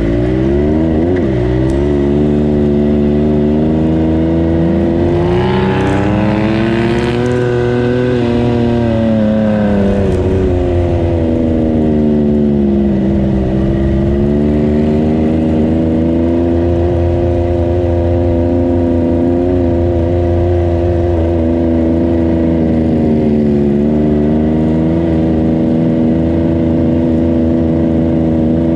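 Yamaha YXZ1000R side-by-side's turbocharged three-cylinder engine running under light throttle at low speed, its pitch climbing and easing back as the throttle is rolled on and off. A brief hiss sounds about five to seven seconds in.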